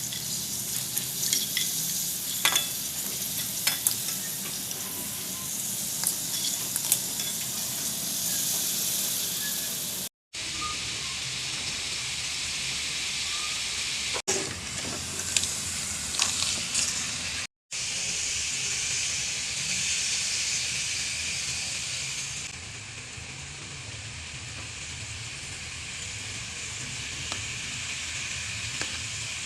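Food sizzling in hot oil in a pan, with light clicks of a spoon stirring. The sizzle drops out twice for a moment and is softer over the last several seconds.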